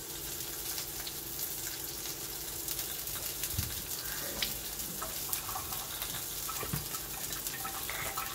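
Chicken breasts sizzling steadily in a frying pan, with a few light knocks and clicks from handling utensils partway through.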